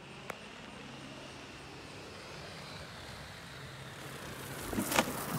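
Rushing air from a swooping parachute canopy coming in to land, with a faint whistle slowly rising in pitch, then a sudden loud whoosh about five seconds in as it sweeps past and touches down on the grass. A short click sounds just after the start.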